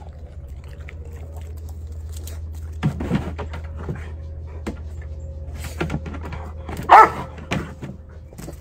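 A dog gives one loud, short bark about seven seconds in, with a few thumps earlier as its paws land on a raised plastic-framed dog bed.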